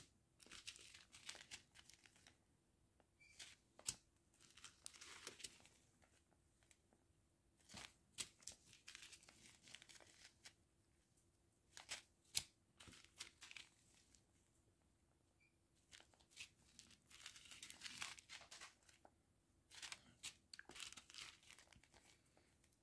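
Small clear plastic zip bags of round diamond-painting drills crinkling faintly as they are picked up and turned in the fingers, in short irregular bursts with pauses between.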